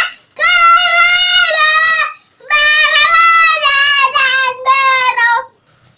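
A child singing loudly, unaccompanied, in two long held phrases with a short breath between them.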